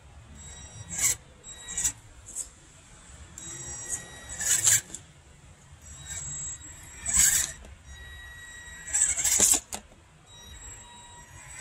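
Electric motor and gears of a scale RC rock crawler, driven in stop-start bursts as it climbs over rocks: about five short, sharp rasps of whine and tyre scrabbling, with a thin, steady high whine from the motor between them.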